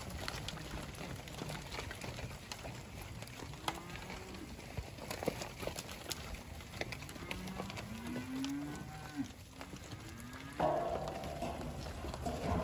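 Angus weaner heifers mooing: a few short low moos that rise and fall about two-thirds of the way through, then a louder, higher bawl lasting over a second near the end.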